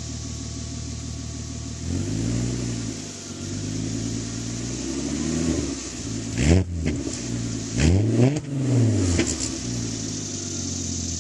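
2001 VW Passat 2.8-litre V6 with an aftermarket catback exhaust, free-revving in place. It idles, then is revved several times. Two sharp, quick blips in the middle are the loudest, and it drops back to a steady idle near the end.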